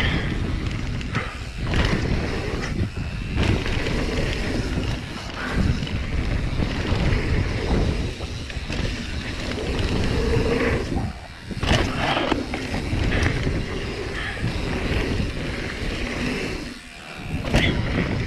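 Mountain bike riding fast down a dirt jump trail: steady wind buffeting the microphone, with the tyres rumbling over packed dirt and the bike rattling. Twice the noise drops briefly and is followed by a sharp knock.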